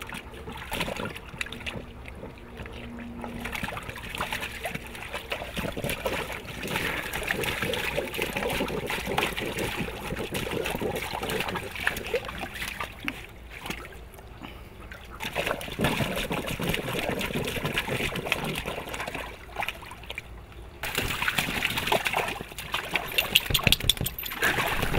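Black Labrador puppy pawing at shallow water in an inflatable kiddie pool as if digging, splashing in bouts with brief pauses, loudest near the end.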